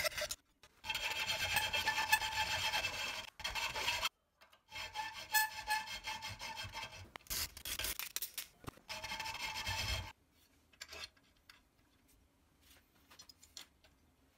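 Hacksaw and hand file cutting and filing a slot in an aluminium plate held in a bench vice. The strokes are played back sped up, so they run together into long scraping spells broken by short pauses, and give way to a few faint clicks about ten seconds in.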